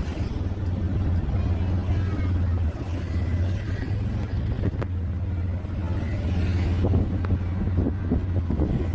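Vehicle engine running steadily with road noise while driving along a street, a constant low drone.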